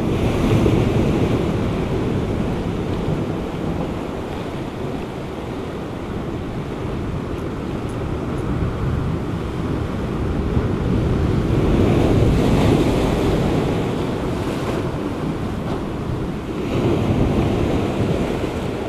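Sea waves breaking and washing over a rocky shoreline, surging and easing in several swells, loudest about two-thirds of the way through, with wind buffeting the microphone.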